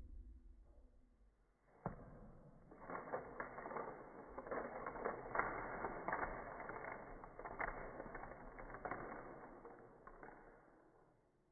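Woven wooden craft sticks springing apart in a stick-bomb chain reaction: a sharp snap about two seconds in, then a rapid clatter of sticks flying and landing that goes on for about eight seconds and dies away near the end.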